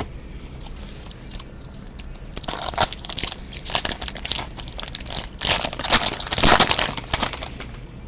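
Foil wrapper of a trading-card pack being torn open and crinkled by hand. The irregular crackling starts a couple of seconds in, is loudest shortly before it stops and dies away near the end.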